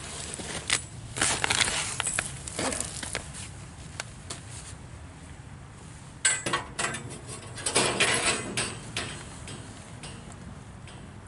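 Metal clattering and scraping in two bouts, starting about a second in and again about six seconds in, as the old band blade is worked off the wheels of a Frontier OS23 bandsaw sawmill with its tension released.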